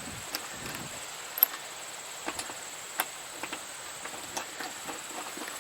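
Irregular light clicks and taps of hand tools and small bolts being handled while a motorcycle's seat is refitted, with one sharper click about a second and a half in.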